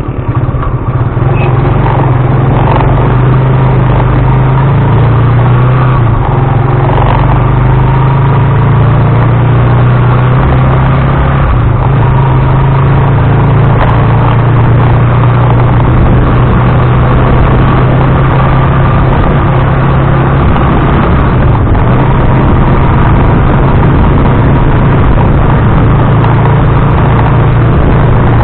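Tricycle's motorcycle engine running steadily while under way, picked up close by an action camera mounted on the vehicle: a loud, constant engine drone with road and vibration noise.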